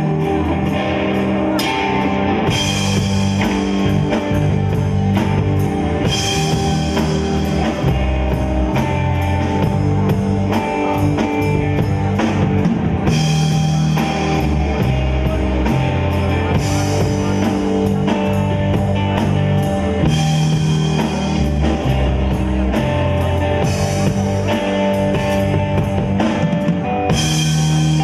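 Rock band playing live: electric guitar, bass guitar and drum kit, the drums keeping a steady beat.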